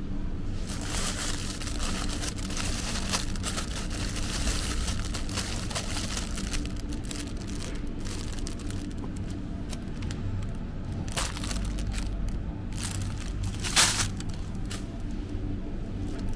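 Plastic produce bags crinkling as packs of green beans are picked up and handled, with one sharper rustle near the end, over a steady low hum.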